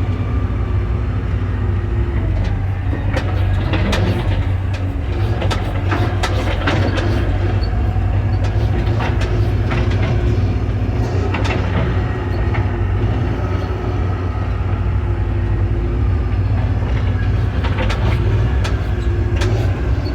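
John Deere backhoe's diesel engine running steadily as the machine travels, with frequent metal clanks and rattles from the machine over the drone.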